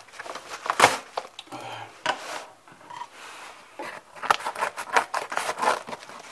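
A yellow padded paper mailer envelope being torn open and crinkled by hand: a loud rip about a second in, a quieter spell, then a dense run of tearing and rustling toward the end.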